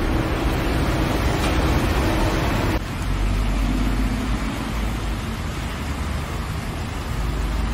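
Street traffic noise: a steady low rumble and hiss of road vehicles. The sound changes abruptly about three seconds in, becoming heavier in the low rumble.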